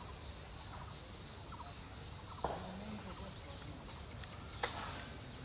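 Chorus of forest insects: a steady, high-pitched shrill that pulses about twice a second.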